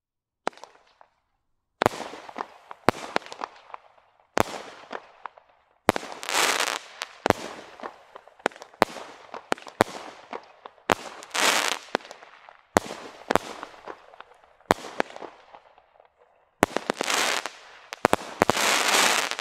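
Standard Fireworks 'Bonfire Bash' 16-shot barrage cake firing. Shots go off one after another, roughly one a second, each a sharp report. Several are followed by about a second of dense crackle as the bursts break in the sky.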